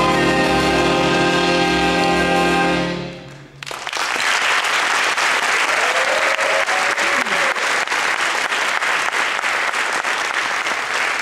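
Jazz big band of saxophones, trumpets, trombones, upright bass and drums holding a final chord that dies away about three and a half seconds in, followed by audience applause.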